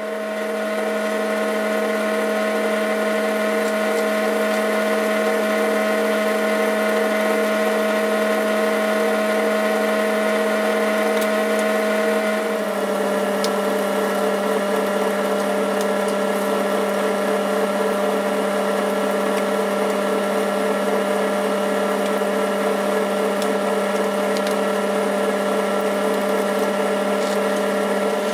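Boxford lathe running, with a steady whine from its motor and gearing as it comes up to speed. About halfway through the pitch drops slightly and a rougher cutting noise joins it as a high-speed-steel parting-off tool cuts into an aluminium bar under load.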